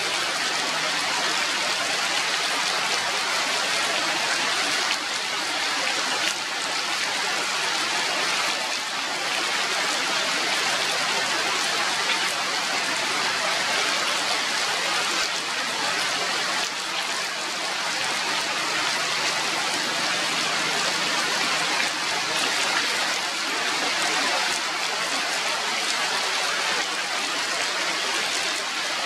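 Steady rain falling on forest foliage, an even hiss that holds the same level throughout.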